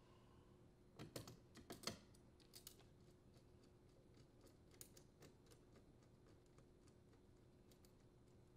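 Faint metallic clicks and taps as a screw, the green ground wire's ring terminal and a hand driver are set against the dishwasher's sheet-metal terminal box, with a cluster of sharper clicks about a second in and a few lighter ticks after.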